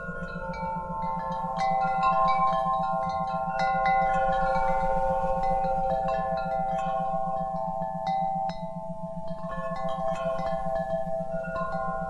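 Wind chimes ringing, many struck notes overlapping and dying away, over a low hum that pulses rapidly and evenly: an isochronic tone for brainwave entrainment.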